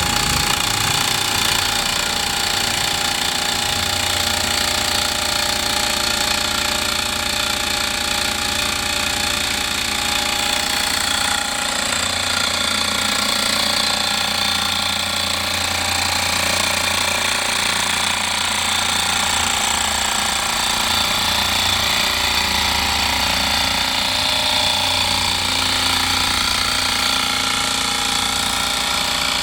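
Air Techniques AirStar 2-1 dental air compressor running steadily, its motor and pump building tank pressure from about 70 psi toward its cutoff at around 80 psi.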